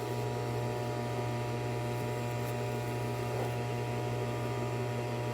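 A steady low electrical hum with faint steady higher tones over it, unchanging throughout.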